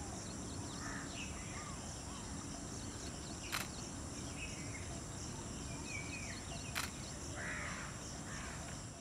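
Outdoor natural ambience: steady high-pitched insect trilling with scattered short bird calls, and two sharp clicks about three seconds apart.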